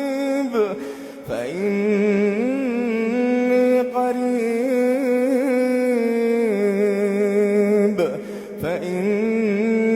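A man chanting Quran recitation in a slow melodic style, holding long, ornamented vowels that waver in pitch, with two short pauses for breath about a second in and about eight seconds in.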